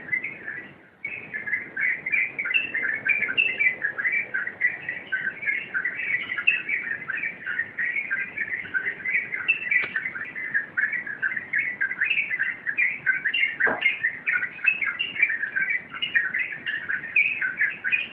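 Yellow-vented bulbul (trucukan) singing a fast, unbroken stream of chirpy bubbling notes in its continuous 'rompel' style, with a short break about a second in. A single sharp click near the end.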